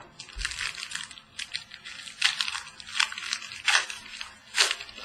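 Trading cards being slid and flipped past one another while a pack is sorted by hand: a run of short, papery swishes, about two a second.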